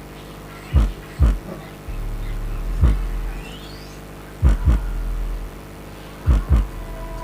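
Bass-heavy electronic music played through a TPA3116D2 2.1 amplifier, with deep kick-drum thumps in pairs and stretches of sustained sub-bass between them.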